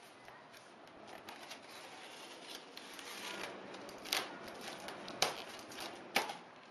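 Packing tape on a cardboard box being slit with a small blade: scraping and rubbing along the taped seam, then three sharp cracks of tape and cardboard in the second half.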